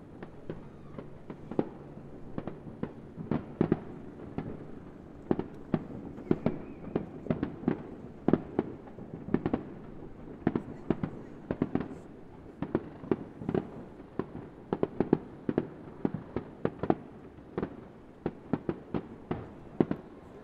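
Aerial firework shells bursting in a rapid barrage: many sharp bangs, several a second, in an irregular run.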